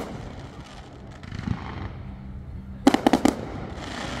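Aerial fireworks bursting: one sharp bang at the start, then a quick cluster of four or five sharp bangs about three seconds in, with a hissing haze between and after them.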